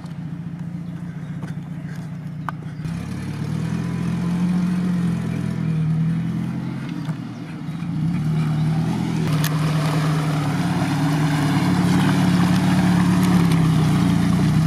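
A modified UAZ 4x4 on big mud tyres crawls through deep mud in low range, its engine drone growing louder as it approaches. From about nine seconds in, mud and water slosh around the tyres.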